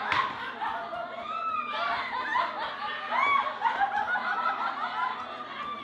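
Several people laughing and chuckling at once, their voices overlapping, with a sharp click right at the start.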